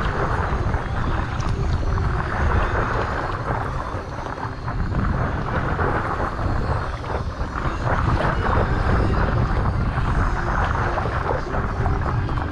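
Wind buffeting the microphone, with water rushing and lapping against the nose of a paddle board as it glides along, swelling and easing every few seconds.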